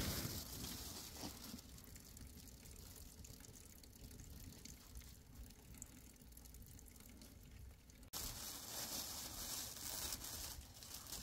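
Wood fire burning in a metal barrel, crackling and hissing faintly, with a knock at the very start. The hiss gets louder and brighter about eight seconds in.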